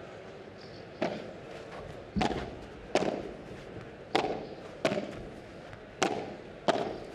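Padel rally: the ball is struck back and forth with solid padel rackets, about seven sharp pops roughly a second apart, each with a short echo off the court.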